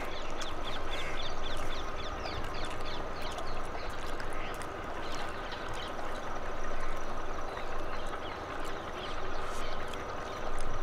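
Steady outdoor din of a running tubewell, with wind rumbling on the microphone and many short bird chirps throughout.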